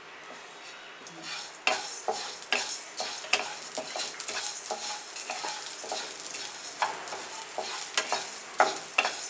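Wooden spatula stirring and scraping whole coriander seeds around a wok as they roast in a little oil, with the sizzle of the oil underneath. The scraping strokes begin about a second and a half in and repeat irregularly.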